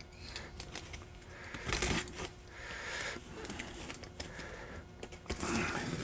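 Box cutter slitting the packing tape along the top seam of a cardboard box: scratchy rasps of the blade through tape and cardboard, in several short strokes, the longest and loudest near the end.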